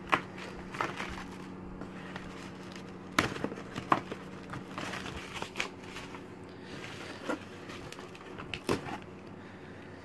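Packaging being handled: scattered crinkling and rustling with sharp plastic clicks and knocks, strongest around three and four seconds in and again near nine seconds, over a faint steady hum.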